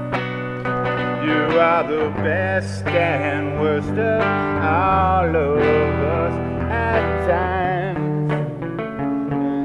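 Music: a song passage with a melody line that wavers and slides in pitch over long held bass notes.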